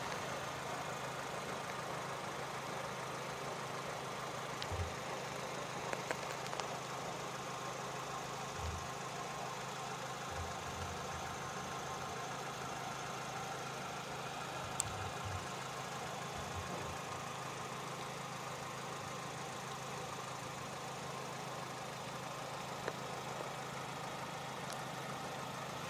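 Steady engine hum of a car idling, with a few faint low bumps now and then.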